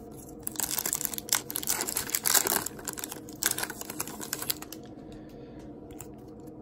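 Foil wrapper of an Upper Deck hockey card pack being torn open and crinkled: a dense run of sharp crackles starting about half a second in and dying away about five seconds in, as the cards are pulled out.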